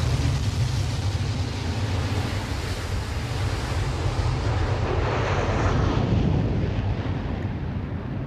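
F-35B fighter's jet engine running at takeoff power during a short takeoff from a ship's deck, its exhaust nozzle swivelled downward. It is a steady, deep rush of noise whose hiss fades over the last few seconds.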